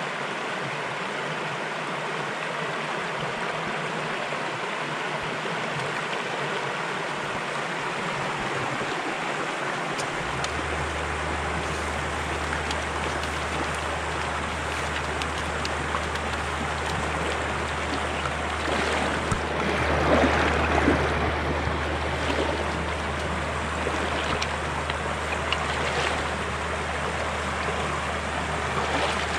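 Trout stream water running steadily over a riffle. A low steady rumble joins about ten seconds in, and a louder splashing surge comes about twenty seconds in.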